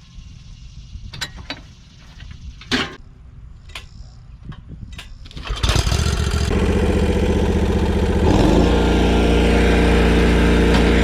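A few sharp clicks, then a commercial walk-behind lawn mower's engine starts about halfway through and runs. A few seconds later it rises in speed and then holds steady at high revs.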